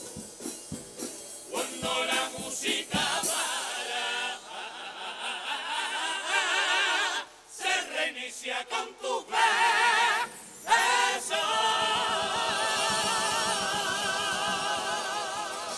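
Carnival comparsa choir singing in several voices with a wide vibrato, accompanied by Spanish guitars. The singing breaks off briefly about seven seconds in, then ends on one long, loud held chord.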